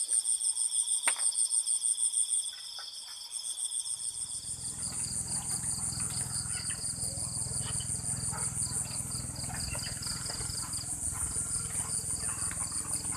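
Night insects chirping in a steady pulsing chorus of high-pitched trills. From about four seconds in, a low steady rumble with scattered faint clicks joins them.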